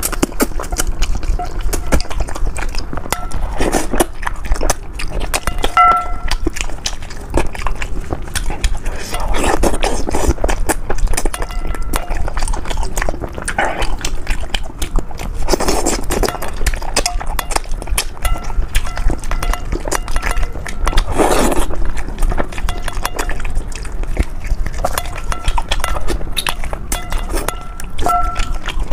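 Close-miked eating sounds of a person chewing, sucking and slurping spicy braised soft-shell turtle: wet, irregular smacks and squelches from the gelatinous skin and meat.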